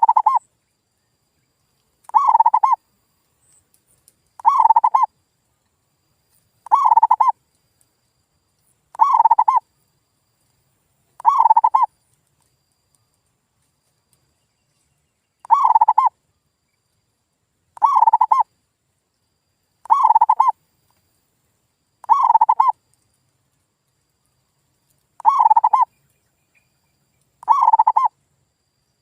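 Male zebra dove (perkutut) singing its cooing song: short rolling coos near 1 kHz repeated about every two seconds, twelve phrases in all, with a longer pause near the middle.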